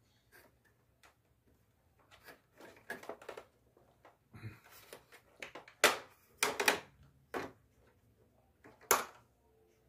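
Irregular plastic clicks and knocks as the swing louver of a Daikin split-type air conditioner's indoor unit is handled and snapped back into its mounts. The sharpest clicks come about six and nine seconds in.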